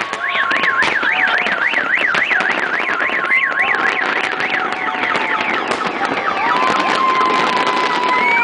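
A siren or car alarm warbling up and down about three times a second for about three seconds, over crackling fireworks and crowd noise. Long, steady horn-like tones sound from about six seconds in.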